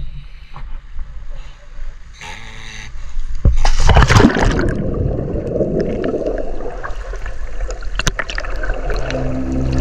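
Scuba diver entering the sea from a boat: a loud splash about four seconds in, then a rush of churning water and bubbles heard with the microphone underwater.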